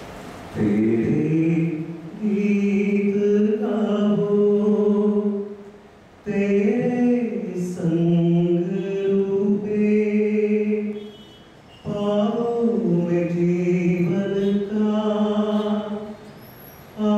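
A man singing solo into a microphone, without accompaniment, in long held notes: three drawn-out phrases with short pauses for breath between them, and a fourth beginning near the end.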